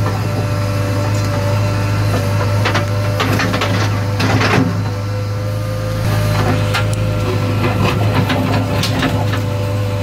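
JCB 3DX backhoe loader's diesel engine running steadily, heard from inside the cab while the backhoe levers are worked. Clusters of rattles and knocks come through in the middle and again near the end.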